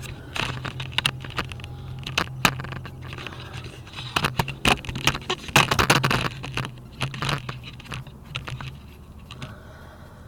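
Metal hand tools and car parts clinking, clicking and scraping, busiest around the middle, over a steady low hum that stops near the end.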